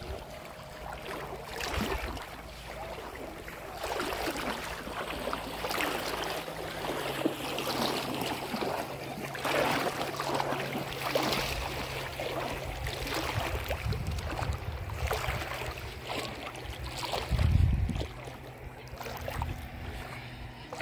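Small waves lapping and splashing in shallow lake water, with wind buffeting the microphone in a strong gust about three-quarters of the way through. A faint steady low hum runs underneath for the second half.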